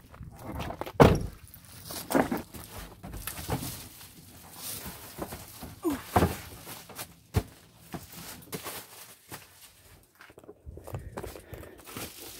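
Footsteps and a string of knocks and thumps as a bulky foil-insulated cover is carried and fitted in place inside a van, the loudest thump about a second in.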